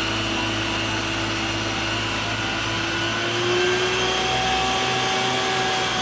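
Isuzu water tanker truck running its pump to feed a roof-mounted water cannon, a steady machine whine over the rush of the water jet. The pitch rises slightly about three seconds in.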